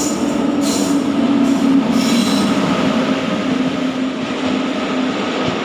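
Indian Railways WAP-7 electric locomotive and its passenger coaches running through the platform close by on arrival, a loud steady rumble of wheels on rail, with brief high squeals in the first two or so seconds.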